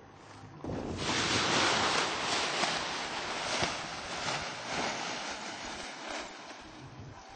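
Wind gusting across the microphone: a rushing noise that comes up sharply about a second in and dies away slowly near the end.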